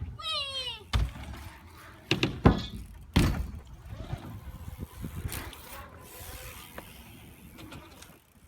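A BMX bike knocking and thudding on the ground during tricks, a few loud thumps about a second in and again around two to three seconds in, after a short squeal that falls in pitch at the start.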